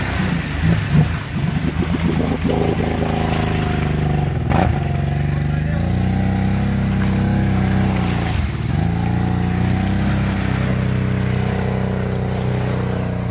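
Kawasaki Brute Force 750 ATV's V-twin engine revving hard under heavy load as the quad is forced through deep mud and water. The revs are ragged at first, climb about halfway through, dip briefly, then hold high. A single sharp knock comes about four seconds in.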